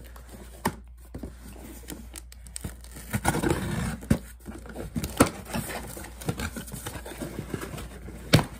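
Cardboard shipping box being opened, its packing tape cut with a flat-head screwdriver: scattered sharp knocks and scrapes, with a longer scraping rustle about three seconds in.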